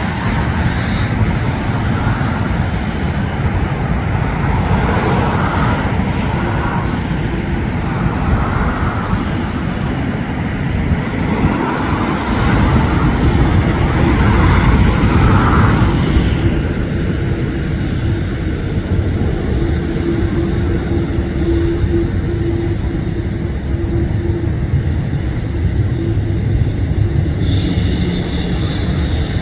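Steady low rumble of airport and road traffic, with distant jet engines among it. A faint steady hum comes in about halfway, and a higher-pitched hiss joins near the end.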